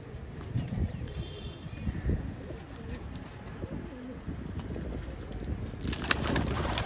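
Patiala pigeons cooing in low, wavering calls, with a burst of scuffling and sharp clicks near the end.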